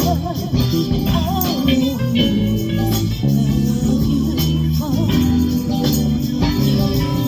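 Live band playing: plucked guitar and bass guitar holding strong low notes over regular percussion, with a singer's voice coming in at moments.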